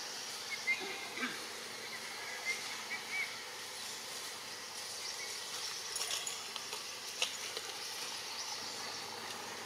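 Steady outdoor background hiss. A few faint, short high chirps come in the first three seconds, and a couple of soft clicks follow later.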